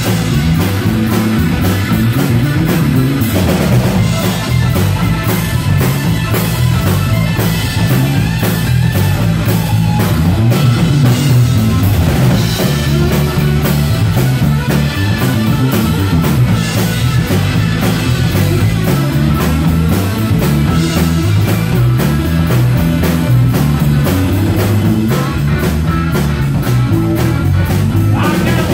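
Live rock band playing an instrumental passage: electric guitar, electric bass and drum kit, with a steady drum beat.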